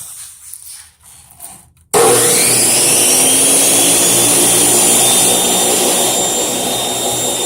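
Old Makita abrasive metal chop saw switched on about two seconds in: the motor and cut-off wheel spin up with a rising high whine, then run steadily at speed without cutting.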